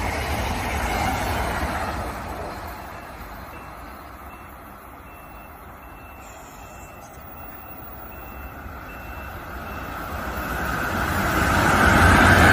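The rushing rumble of a passing Amtrak train of Amfleet coaches fades over the first couple of seconds. A faint high beep then repeats steadily through the quiet middle. Near the end an approaching Amtrak train led by an ACS-64 electric locomotive builds to a loud rumble and rush of wheel and rail noise.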